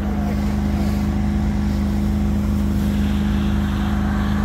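Engine of firefighting equipment running steadily at constant speed, a low even drone that does not change pitch.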